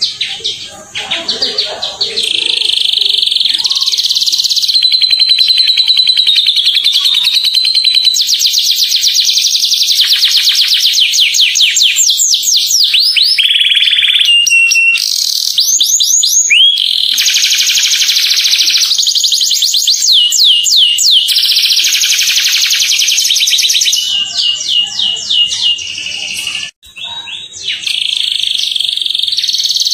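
Domestic canary singing a long, loud song of rapid high trills, fast repeated notes and gliding whistled phrases, broken by short pauses and one brief break near the end.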